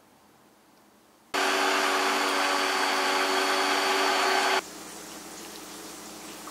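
Immersion blender running steadily in a pot of thick orange puree, a steady motor sound over a churning wash. It starts abruptly about a second in and stops abruptly some three seconds later.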